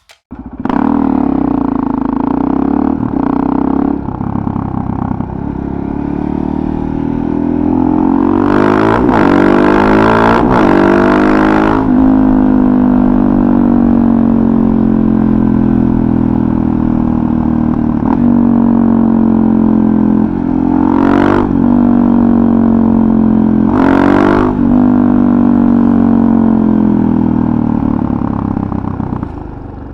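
Suzuki DR-Z400SM's single-cylinder four-stroke engine through a full FMF Powercore 4 exhaust, riding on the road, its pitch rising and dropping as the rider works the throttle and shifts gears. A few short bursts of rushing noise come and go over the engine, about a third of the way in and twice near two-thirds of the way through.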